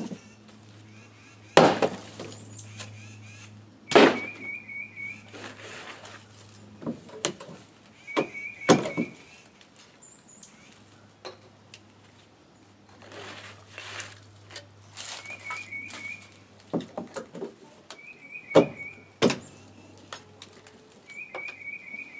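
Loud knocks and thuds from work on wooden porch decking, with about five sharp blows standing out among smaller knocks. A short run of quick high pips repeats every few seconds.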